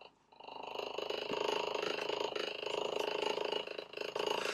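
Fishing reel being cranked, a steady fast whirring that starts about half a second in, as a hooked burbot is reeled up through the ice hole.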